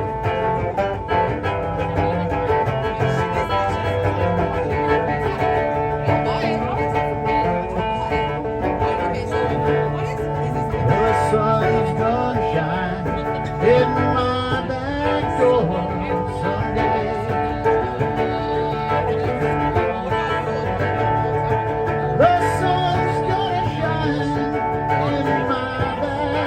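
Live band music with guitars playing a country-rock groove and a gliding melody line over a full low end.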